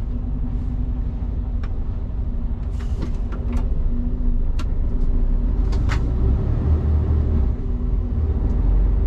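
Truck's diesel engine running, heard from inside the cab as a steady low rumble that grows louder about halfway through. A few short clicks and a brief hiss about three seconds in.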